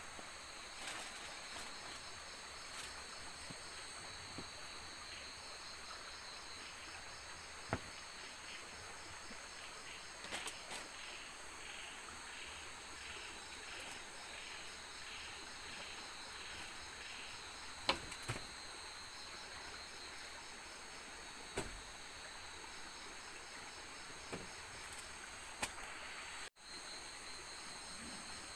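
Night insects chirring in the forest, several steady high-pitched trills layered together. In the middle a slower pulsing call repeats a little under twice a second. A few sharp clicks sound now and then, and the sound cuts out for an instant near the end.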